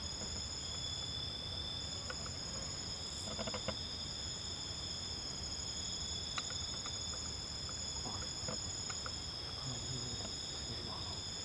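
A steady chorus of insects, crickets or similar, holding several unbroken high-pitched trills at once, with a few faint ticks and knocks over a low background rumble.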